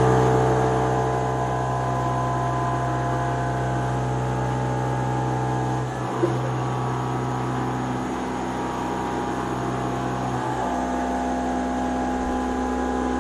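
Haas VF-3YT CNC vertical machining centre running, a steady hum of several tones from its spindle and drives. The hum shifts about six seconds in, with a short click, and changes pitch again about ten and a half seconds in.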